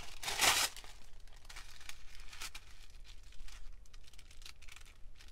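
Tim Holtz collage paper crinkling and rustling as it is handled and laid down by hand. There is one louder rustle about half a second in, then lighter crinkles.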